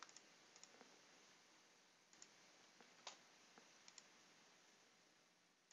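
Faint, irregular computer mouse clicks over near silence, about ten of them, the clearest about three seconds in.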